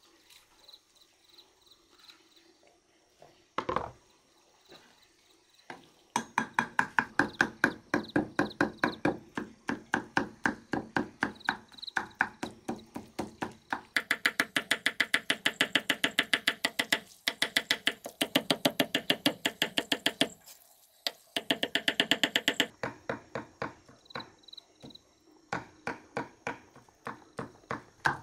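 Cleaver chopping cooked beef on a thick wooden chopping block: fast, even strokes, about five a second, starting about six seconds in and broken by a couple of short pauses. A single knock comes before the chopping starts.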